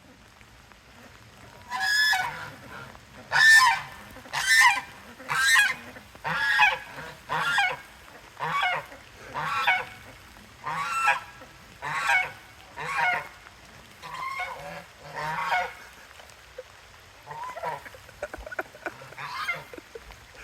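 A goose honking repeatedly, a long series of loud, separate honks about one a second, starting about two seconds in and growing fainter and sparser toward the end.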